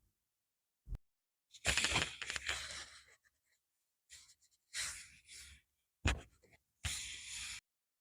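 Stationery packaging being handled and opened close to the microphone: a short click about a second in, then several separate bursts of rustling and scraping with dead silence between them.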